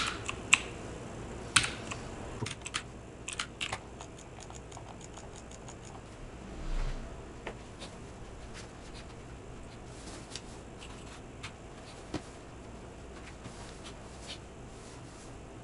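Sharp clicks of a computer mouse and keyboard working through a Windows setup screen: a cluster of clicks and a quick run of key taps in the first five seconds, then only a few faint clicks. A soft low thump about seven seconds in, over a steady low hum.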